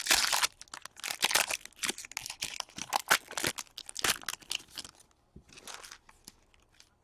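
Trading cards being handled and sorted by hand: a run of dry rustling, scraping and flicking, thinning out after about five seconds.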